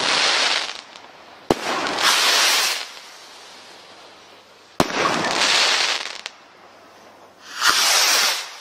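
160 g Category 3 firework rockets going off one after another: a sharp crack, then about a second of loud hissing, repeated every three seconds or so. One hiss is already fading at the start and another swells near the end.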